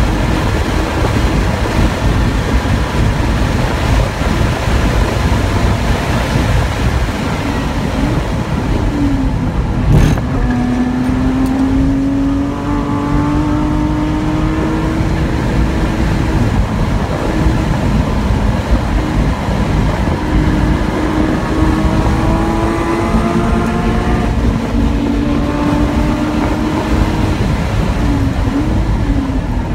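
Porsche Cayman GT4's flat-six engine heard from inside the cabin at track speed, under a heavy rumble of wind and road noise. The engine note rises repeatedly through the gears and dips under braking and downshifting. A single sharp knock comes about ten seconds in.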